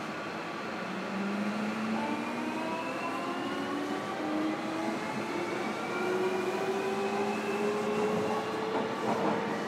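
JR Kyushu 305 series electric train accelerating, heard from inside a motor car: the inverter and traction motors give a whine of several tones that climbs steadily in pitch over the rumble of the wheels on the track.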